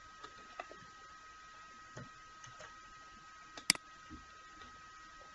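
A single sharp computer mouse click about three and a half seconds in, the click that starts a notebook cell running. It is heard over a faint steady high-pitched whine, with a few fainter clicks earlier on.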